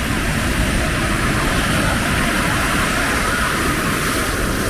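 Steady rushing noise of ocean surf breaking on the beach, with wind buffeting the microphone.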